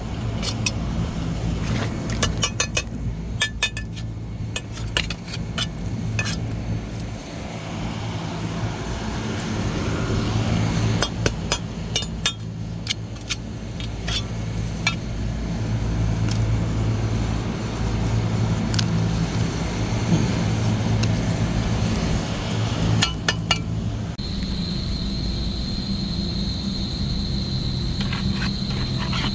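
Ice being chipped and broken off a frozen-up refrigerated case evaporator coil and drain pan, with repeated sharp clinks and knocks of ice over a steady low hum. The ice has built up because the drain is plugged. Near the end the clinking stops, leaving a steady hum with a thin high tone.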